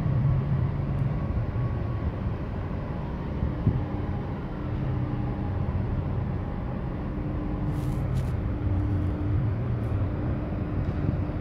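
Large container ship passing close by: a steady low rumble of its engines and machinery, with a faint hum held over it.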